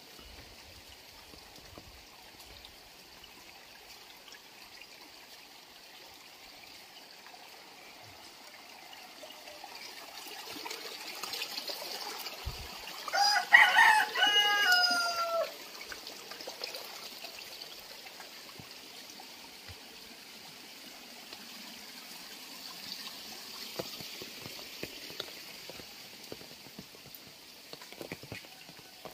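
A rooster crows once about halfway through, one call of about two and a half seconds that drops in pitch at the end. Underneath is a steady trickle of rainwater running in a roadside drain.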